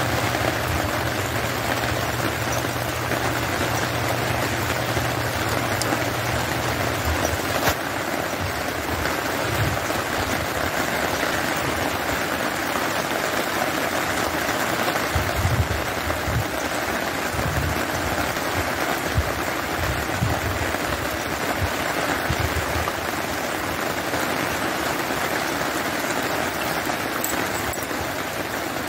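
Steady rain falling, an even hiss of drops on wet ground. A low hum sits beneath it for the first several seconds, followed by scattered low rumbles.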